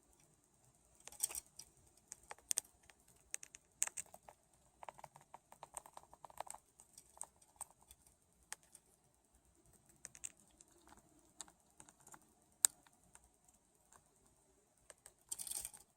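A budgie clambering on and pecking at a curtain: faint, irregular light clicks and taps with a few brief rustles, the loudest rustle near the end.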